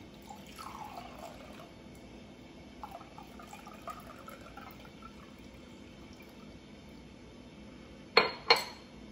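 Water poured from a glass measuring cup into a clear glass cup, a faint trickle whose pitch shifts as the cup fills. Near the end, two sharp knocks of glass on a hard surface.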